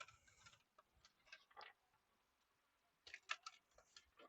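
Near silence, broken by a few faint, short clicks and rustles, with a small cluster of them about three seconds in.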